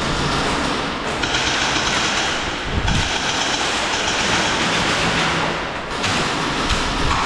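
Steady rushing noise, like wind and gear movement on a worn camera, during an airsoft drill round, with a dull thump about three seconds in and another near the end.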